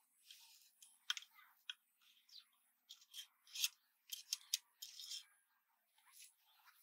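Quiet, irregular small clicks and scratchy scrapes as hands handle the parts of a homemade fishing spear gun, its dart rod being worked at the top of the metal barrel.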